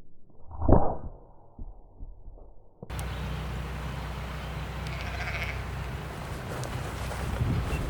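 A single muffled report from a .22 PCP air rifle (Daystate Alpha Wolf) fired through a silencer, heard dull and cut off in the highs, about a second in. It is followed about three seconds in by a steady outdoor background with low wind rumble and faint distant calls.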